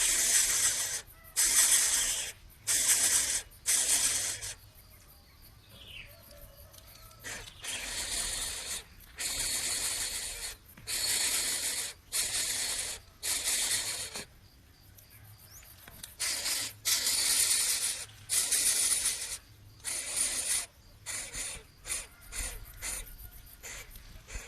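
Coucal chick giving repeated harsh hisses, about one a second, each lasting under a second. There are two short pauses, and the hisses grow shorter and quicker near the end.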